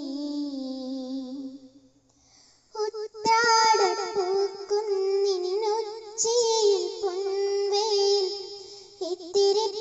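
A girl singing a Malayalam song solo, holding long wavering notes. A note falls and fades out about two seconds in; after a short break she resumes louder.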